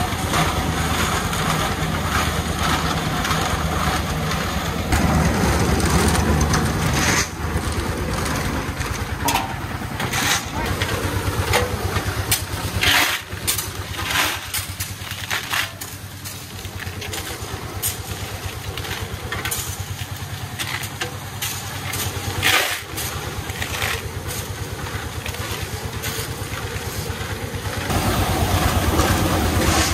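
The engine of a concrete mixer runs steadily while its drum turns, with shovels scraping and knocking into gravel and stones clattering into basins.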